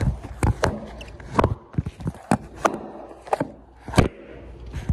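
A run of sharp knocks and clicks, irregular at about two a second, over a low rumble.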